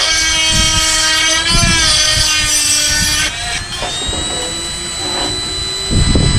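Handheld rotary tool with a diamond bit whining at high speed and grinding into the chipped teeth of a cast iron gear, cutting the damaged spots back past the root before brazing. About three seconds in the grinding noise drops away and the motor runs free with a slightly higher whine. Near the end there are a couple of low knocks.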